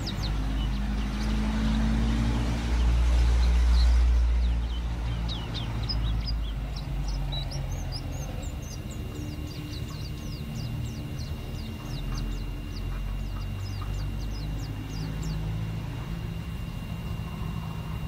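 A caged white-eye (pleci) singing a fast run of thin, high chirps that drop in pitch. The song thins out and stops about three seconds before the end. Under it runs a low motor rumble, loudest a few seconds in.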